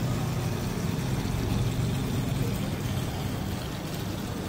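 Steady street noise: a low, even traffic rumble with faint voices in the background.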